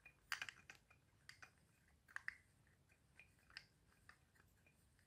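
Faint, irregular small plastic clicks from a 3D-printed wind-up toy car being handled.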